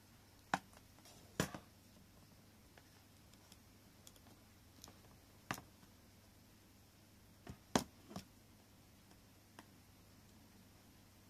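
Picture frame with a hardboard back being handled on a desk: a handful of scattered sharp clicks and light knocks, the loudest near the start and a quick cluster of three about eight seconds in.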